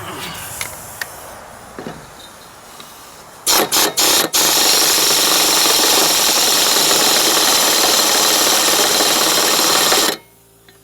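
A loud machine starting with three short bursts, then running steadily for about six seconds before cutting off suddenly.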